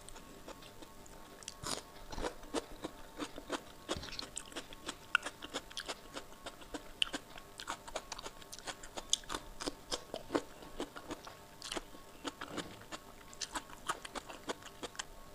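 Close-miked eating sounds of rice and kadhi eaten by hand: wet chewing and lip smacks with many quick mouth clicks, and crunches of a raw cucumber slice.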